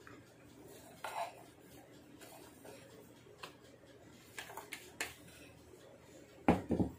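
Glass mixing bowls being handled: a few soft taps and knocks as the last of the meringue is emptied from one bowl into the batter bowl, with a louder double knock near the end.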